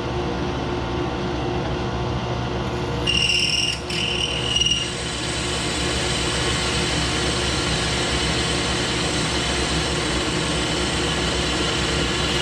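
Drill press running at about 1200 RPM, its oiled bit boring a hole in metal that will be tapped for an M8 bolt. A high squeal from the bit cutting comes about three to five seconds in.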